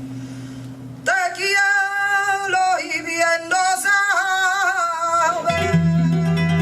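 Male flamenco singer (cantaor) singing a line of a soleá in long, wavering held notes, coming in about a second in as a guitar chord dies away. The flamenco guitar comes back in under the voice near the end.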